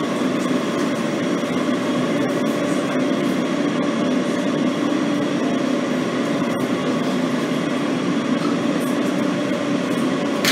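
Steady hum of a Kawasaki R160B subway train standing at its terminal, with a low droning tone and a few faint clicks.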